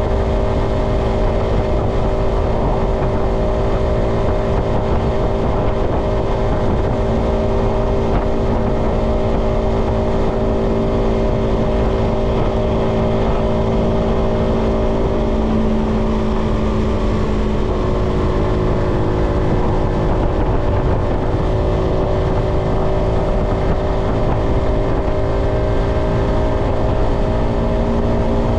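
Yamaha XSR125's 125 cc single-cylinder four-stroke engine running steadily at cruising speed under heavy wind noise. The engine note shifts slightly about halfway through, then holds steady again.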